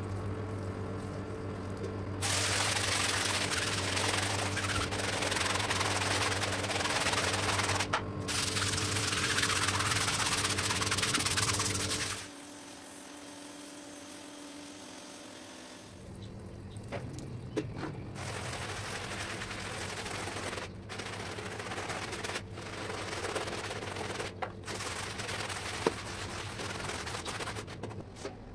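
Pressure washer running, its motor humming steadily under the loud hiss of the water jet on a wet rug, stopping about twelve seconds in. After a short lull, a hand brush scrubbing the soapy rug, a rough hiss with scattered clicks.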